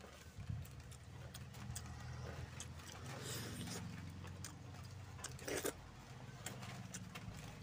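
Close-up eating sounds of a person eating rice and chicken curry by hand: wet mouth clicks and chewing, with fingers working in the curry in a steel bowl, and a louder wet mouth sound about five and a half seconds in. A low steady hum runs underneath.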